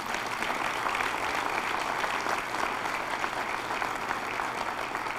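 Large audience applauding steadily, the dense patter of many hands clapping.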